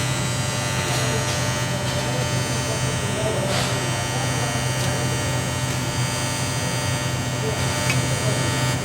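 Arc welder running during a 2G welding test, giving a steady electrical hum and buzz with a faint crackle.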